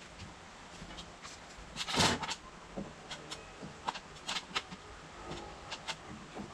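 Wooden shed framing being handled by hand: a louder bump about two seconds in, then a scattering of sharp knocks and clicks.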